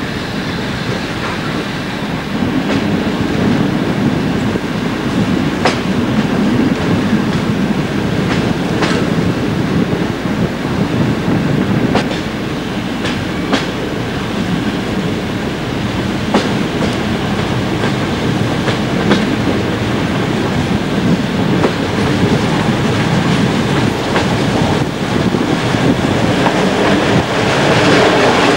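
Passenger train running along the track, heard from a carriage window: a steady rumble of wheels on rail with scattered sharp clicks of the wheels over rail joints, getting a little louder near the end.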